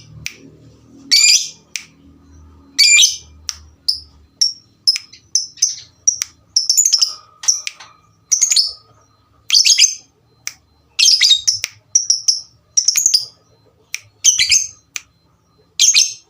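Lovebirds chirping and squawking back and forth in short, shrill bursts, roughly one a second.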